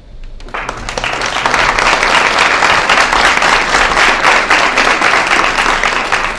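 Audience applauding: the clapping starts about half a second in, swells over the next second and then holds steady.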